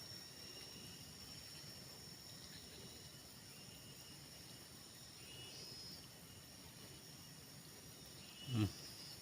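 Faint rice-paddy ambience: insects chirring with a steady high thin tone over a light hiss. About eight and a half seconds in, a short low voice sound falls in pitch.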